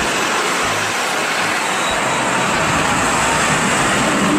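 City street traffic noise: a steady hiss of passing vehicles as a red Routemaster double-decker bus drives by.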